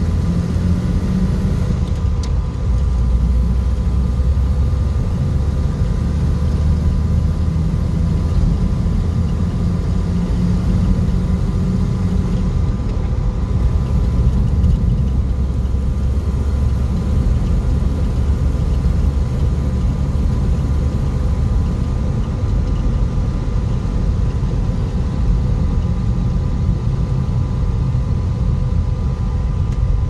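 Inside the cabin of a moving 1951 Nash Statesman: its flathead six-cylinder engine and the road noise make a steady low rumble, with a few faint steady whining tones above it.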